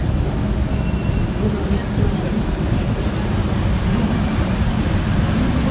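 Steady low rumble inside a Concarril NS-88 rubber-tyred metro car running along the line, with passengers' voices under it.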